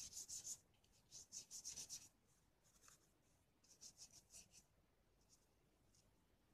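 Paintbrush stroking watercolour onto cartridge paper, faint: three short runs of quick scrubbing strokes, the last about four seconds in, as the wet wash for the ground water is laid down.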